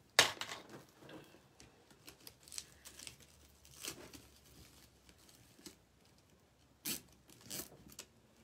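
Mesh ribbon rustling and crinkling as it is handled and twisted into a wreath work board's ties, in scattered short bursts. A sharp knock of handling comes just after the start and is the loudest sound.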